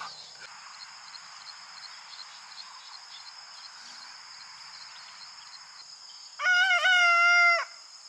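A rooster crows once, a single level call a little over a second long, about six seconds in, over a steady high buzz of insects.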